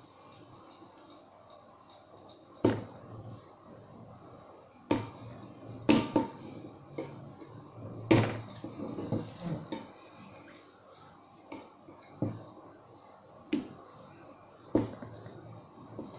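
Irregular sharp clinks and knocks of a metal tool and a glass wine bottle as a screw twisted into the cork is gripped and worked upward to pull the cork, about a dozen in all, loudest in the first half.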